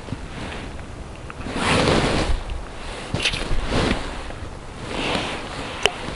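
Wind gusting against the microphone in several swells of rushing noise, the strongest about two seconds in, with one sharp click near the end.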